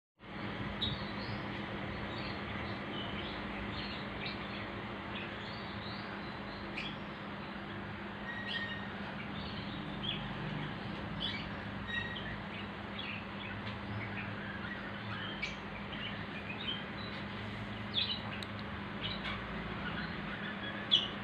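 Electric fan running: a steady airy whoosh with a low motor hum. Short high chirps come and go over it throughout, with a sharper one near the end.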